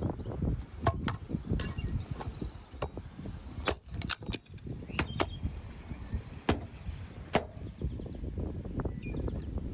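Firewood cracking and snapping: a string of irregular, sharp wooden cracks over a low rustling, as wood is broken or split for a cooking fire.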